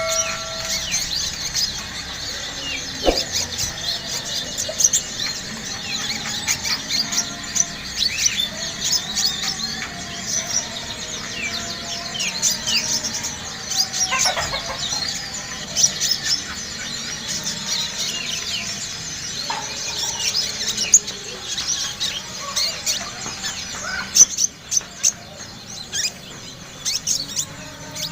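Konin (kolibri ninja) sunbird singing in a rapid, continuous run of short, high-pitched chirps and twittering notes that sweep up and down.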